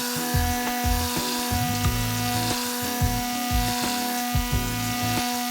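Tornador air cleaning gun buzzing steadily as it blasts compressed air and diluted degreaser, with background music.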